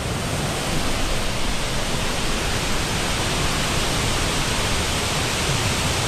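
Large waterfall rushing nearby: a loud, steady, unbroken roar of falling water.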